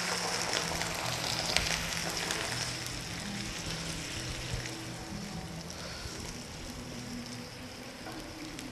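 Onion and capsicum sizzling in a frying pan as water is added and a wooden spoon stirs the sauce; the sizzle gradually dies down.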